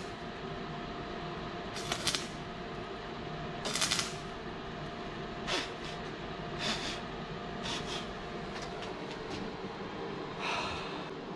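Stick (arc) welder striking short arcs on the thin-walled steel handle pipe of a push lawnmower: about seven brief crackling bursts, each under half a second and a second or two apart, over a steady hum.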